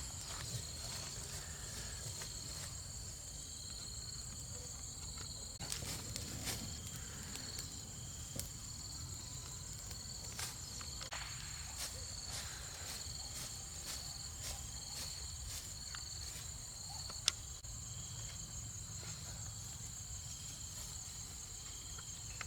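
Insects trilling steadily at a high pitch, with a second, lower trill beneath, over a low rumble. Scattered light clicks and knocks come through, with one sharper click toward the end.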